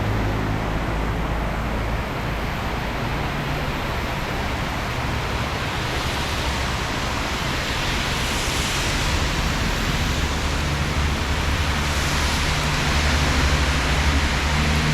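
Heavy rain pouring down in a steady hiss that swells about halfway through, with a vehicle engine running underneath as a low hum.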